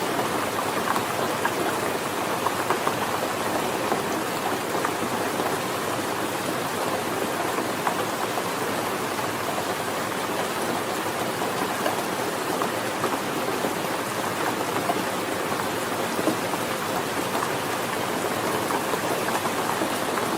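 Steady rainfall, a dense patter of many small drops landing on a hard surface.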